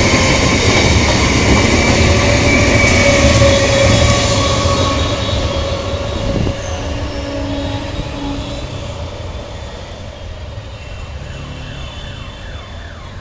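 Electric multiple-unit (EMU) local train running past on the tracks close by: wheel and carriage rumble with steady squealing tones from the wheels. The sound fades after about five seconds.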